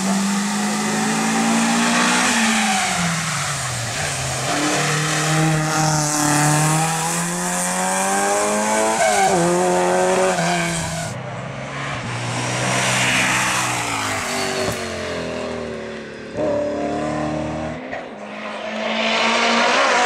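Hillclimb race cars driven hard uphill, engines revving up and dropping back with each gear change. The sound cuts to a different car a little past the middle and again near the end.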